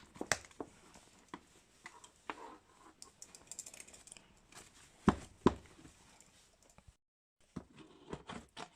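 Handling noises of leather planners on a table: scattered light clicks, taps and rustles, with two sharp knocks a half second apart about five seconds in.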